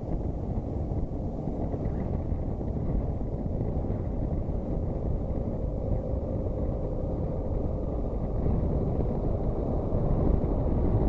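Farm tractor's diesel engine running as the tractor and its trailer approach on a cobbled track, growing louder as it comes close near the end, over a steady low rumble of wind on the microphone.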